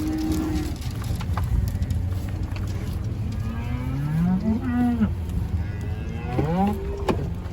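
Beef cows mooing, three separate calls: one at the start, a rising one about halfway through and another near the end. A steady low rumble runs beneath them.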